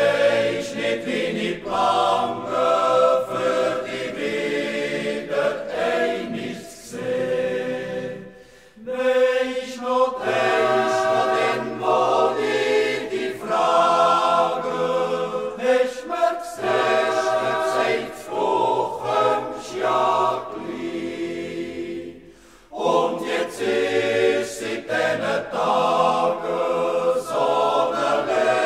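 Music with a choir of voices singing, dipping briefly twice.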